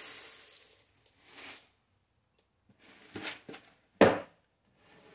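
Kitchen handling noises: a rustling hiss that fades within the first second, a few soft scrapes and clatters around three seconds, then one sharp knock about four seconds in, the loudest sound.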